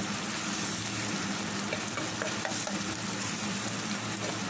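Hot oil sizzling steadily in a pan, frying chopped garlic and onion for a baghar (tempering) for cooked greens.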